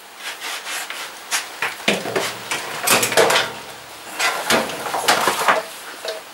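Irregular knocks, clatters and scrapes of hand tools and a plastic wheel trim being handled, as a socket wrench is fitted onto the wheel nuts of a car's steel wheel.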